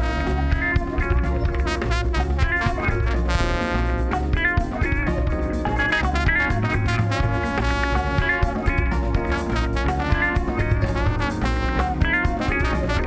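Instrumental band music with plucked guitar-like strings, drums and a steady bass beat.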